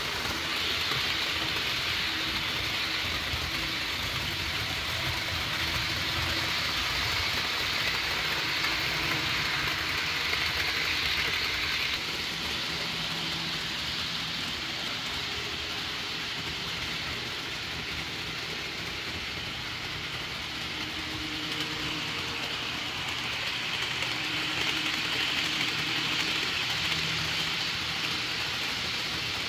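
HO scale model commuter trains running on sectional track: a steady rolling hiss of metal wheels on the rails with the low hum of the locomotive motors, easing slightly about twelve seconds in.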